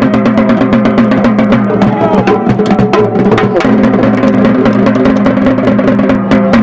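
Music with a fast, steady percussion beat over held tones.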